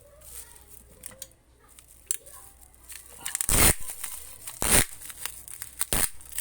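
Packing material being torn in three short, loud rips about a second apart, with faint rustling before them.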